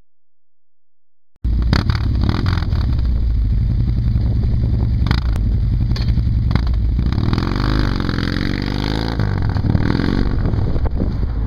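Harley-Davidson touring bike's V-twin engine through SuperTrapp True Dual head pipes without catalyst and Kerker Stout 4-inch slip-on mufflers. It cuts in suddenly about a second and a half in and runs steadily at idle. It then revs up and down as the bike pulls away, about seven seconds in.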